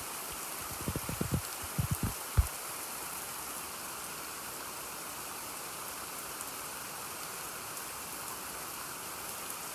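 Rain falling steadily, an even hiss throughout, with a handful of dull low thumps in the first two and a half seconds.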